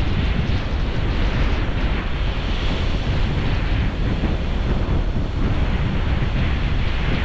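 Surf washing on a beach under heavy wind buffeting the microphone, a steady rushing noise with a deep rumble that swells and eases.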